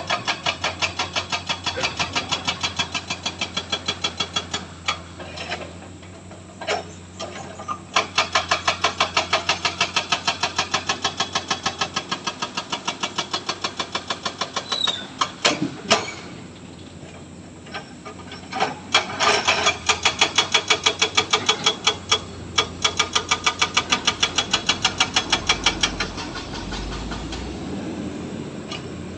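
Excavator at work: its diesel engine runs under a rapid, even pulsing of about eight beats a second. The pulsing comes in spells of several seconds, with pauses near a third of the way in, around the middle and in the last few seconds, when a steadier engine hum is left.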